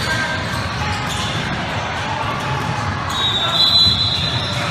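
Basketball game in a gymnasium: a ball bouncing on the court over a steady murmur of spectators' voices. About three seconds in, a high, shrill whistle sounds for over a second.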